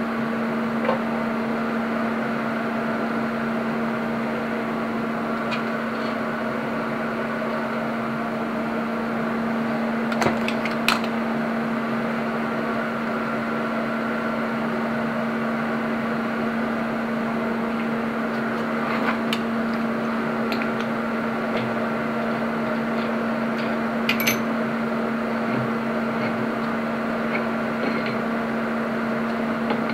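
Steady machine hum from the welding setup, with a few sharp metallic clicks and knocks as the welded drive shaft is handled in the chuck and tailstock.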